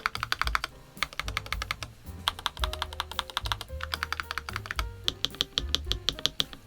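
Fast typing on a NuPhy Halo96 mechanical keyboard: runs of quick keystroke clacks with short pauses between them, over background music.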